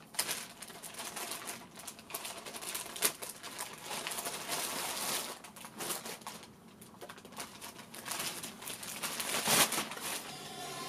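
Plastic protective film being peeled and crinkled off a speaker, with irregular rustling and crackles. Near the end a steady hiss starts rising: FM radio static from the Teufel Boomster, switched on by accidentally touching its top touch buttons.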